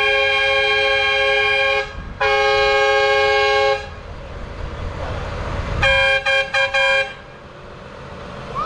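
Tractor horns blowing a steady chord of several notes: two long blasts, then a quick run of short toots a couple of seconds later, over the low rumble of the idling tractors.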